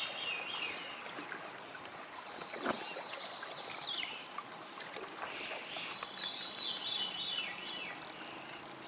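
Steady rush of a flowing creek, with a songbird singing short, high, descending phrases over it several times. One brief soft knock comes about three seconds in.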